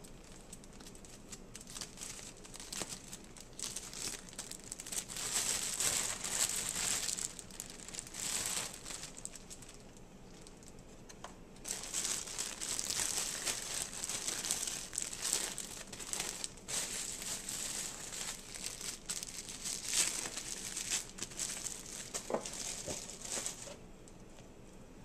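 Plastic bread bag crinkling as slices of sliced bread are pulled out, in two long spells of rustling with a short lull between.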